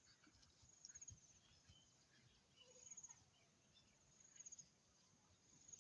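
Near silence, with faint short high-pitched insect trills repeating about every one and a half to two seconds.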